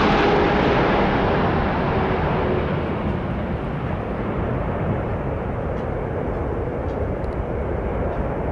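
Airliner engine noise, loud at first. Its high hiss and faint whine fade over the first three seconds as the aircraft moves away, leaving a steady low rumble.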